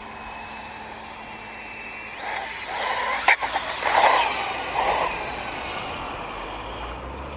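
SKYRC SR5 1/4-scale RC motorcycle speeding past, its electric motor whining with tyre noise. A faint steady whine swells about two seconds in to a louder pass with rising and falling high-pitched whine and one sharp click, then fades away.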